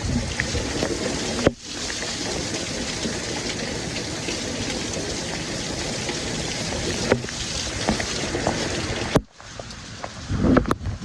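Heavy rain falling in a steady, dense hiss. It cuts out abruptly twice, about a second and a half in and again near the end, after which it is quieter with gusts of wind buffeting the microphone.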